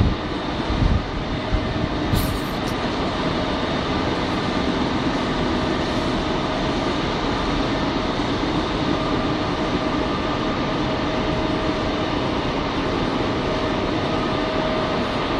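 Ring die feed pellet mill running: a loud, steady machine hum with a few steady whining tones. A few knocks come in the first couple of seconds, and a short high hiss comes at about two seconds.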